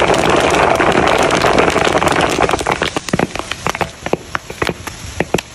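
Popcorn popping in a wok over a wood fire: a dense, rain-like crackle of many kernels bursting at once that thins out about halfway through into separate, scattered pops.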